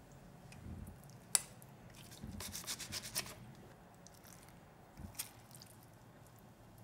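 Wet fermented kimchi being lifted with wooden chopsticks from a stainless steel container into a stainless steel bowl: soft squishing and rubbing, with a crackly stretch about two to three seconds in. A sharp tap about a second and a half in and another around five seconds.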